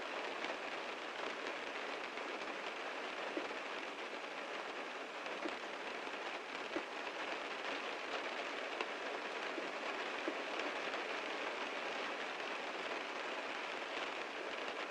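Heavy rain falling steadily on a car, an even hiss of rain with individual louder drops striking now and then.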